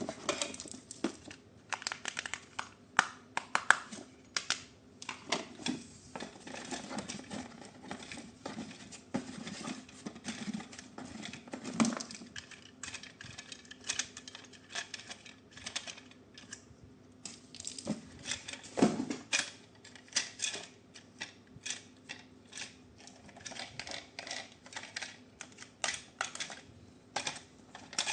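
Packaging being handled during an unboxing: a long run of irregular clicks, taps and crinkles of plastic and cardboard, with a louder knock about twelve seconds in and another about nineteen seconds in.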